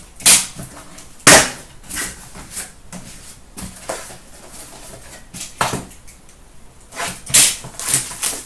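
Cardboard case being torn open by hand: sharp rips and knocks as the taped flaps are pulled apart, the loudest about a second in, with a few more snaps and clatters later.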